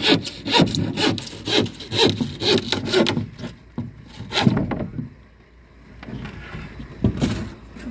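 Handsaw cutting through a plywood formwork sheet: regular back-and-forth rasping strokes, about two a second, for the first three seconds, then a pause broken by a few more strokes.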